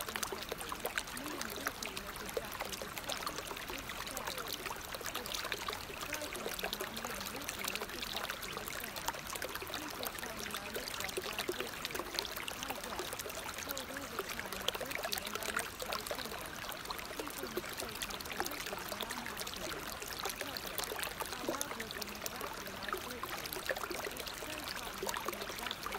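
Steady noise of running water, like a flowing stream, playing as the masking background track of a subliminal audio.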